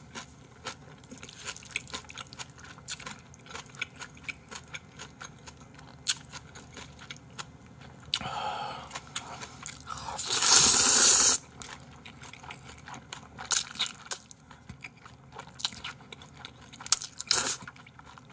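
Close-miked eating of Jjapaghetti black-bean instant noodles: steady chewing with many small wet clicks, broken by two noisy slurps of noodles, a softer one about eight seconds in and a louder one lasting over a second at about ten seconds.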